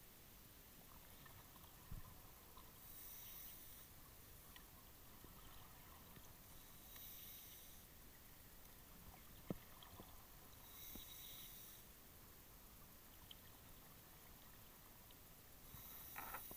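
Faint scuba breathing heard underwater through a regulator, a hissing, bubbly breath about every four seconds, with a couple of small sharp clicks in between.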